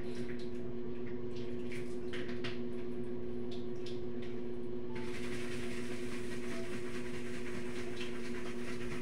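Aquarium pump humming steadily, with water bubbling and dripping in the tank; about five seconds in, the splashing water noise gets louder and stays up.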